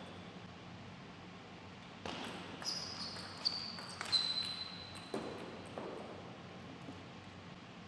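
Table tennis rally: the celluloid-type ball clicking sharply off bats and table several times in quick succession, from about two to four seconds in, with two duller knocks about a second later.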